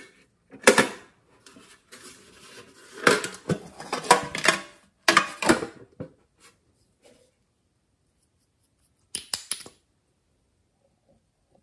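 Hard plastic container being handled and opened by hand: clattering and clicking in several bursts over the first six seconds, then one short clatter near the end.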